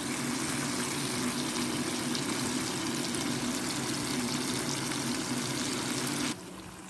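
A pot of chicken feet steaming on the stove: a steady hiss with a low hum beneath it, cut off abruptly about six seconds in.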